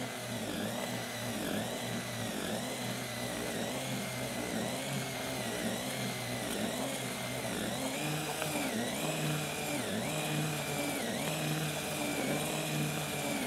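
Cordless drill spinning a groundbait whisk through damp groundbait and leam in a plastic bucket. The motor whine is steady but dips in pitch about once a second as the whisk drags through the mix, picks up a little a bit past halfway, then stops suddenly.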